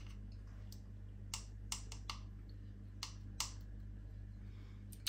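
About half a dozen light clicks and taps, a few tenths of a second to a second apart, as ground ginger is shaken and tapped out of a small metal tin into a plastic mixing bowl. A faint steady low hum runs underneath.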